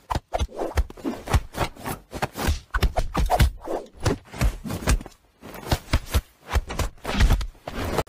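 A dog and a cat play-fighting, pawing and wrestling on a mesh lounge chair. Their paws and bodies make irregular scuffling, scraping and thumping.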